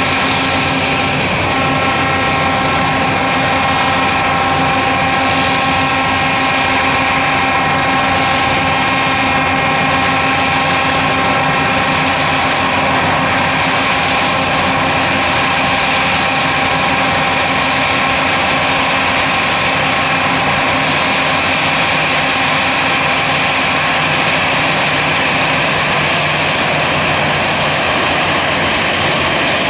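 Airbus A320 jet engines running at taxi power as the airliner rolls slowly: a steady, loud jet whine with several held tones that fade somewhat in the second half.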